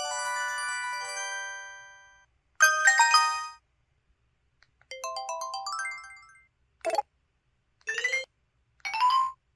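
A string of short electronic system jingles from a PT-S120 phone: a chiming chord that fades over about two seconds, a short bright burst, a rising run of beeps, then three brief blips near the end.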